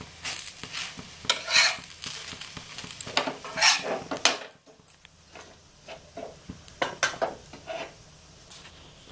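Metal spatula scraping across a flat griddle pan to lift off a finished rice-flour crepe, over light sizzling: a few loud scrapes in the first four seconds or so, then quieter clinks and taps.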